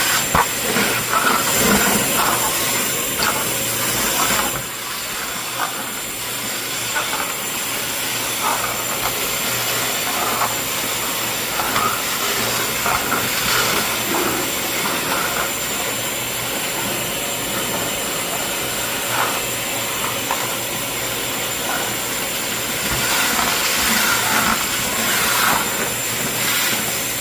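SD400 sludge cleaner running and sucking water off the floor through a wide floor nozzle: a steady rushing hiss with a thin high whine, broken now and then by short, uneven louder surges.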